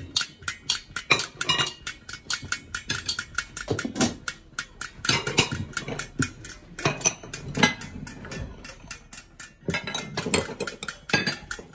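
Ceramic plates, bowls and metal cutlery clinking and clattering as a table is cleared and set, a run of irregular sharp knocks and clinks.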